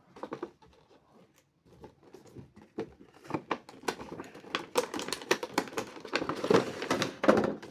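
Action-figure packaging being handled: after about two quiet seconds, a string of light clicks and rustles of plastic and cardboard that grows busier toward the end.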